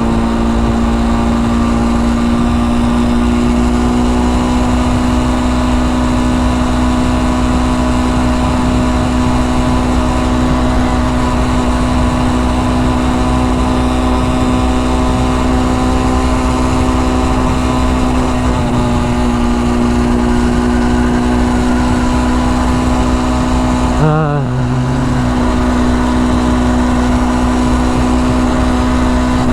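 Small single-cylinder four-stroke engine of a Honda Dax-style motorcycle running at a steady cruising speed under way, holding one even note. The bike has an exhaust leak. A brief wobble in the note comes about three-quarters of the way through.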